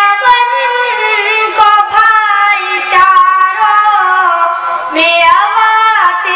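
A boy singing a nazm solo in a high voice, holding long, wavering melodic notes with short breaths between phrases.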